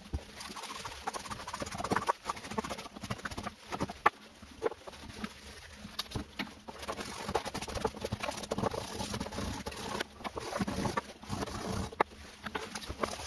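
Irregular taps, knocks and scraping of small parts being handled and worked on by hand, with many sharp clicks at uneven intervals.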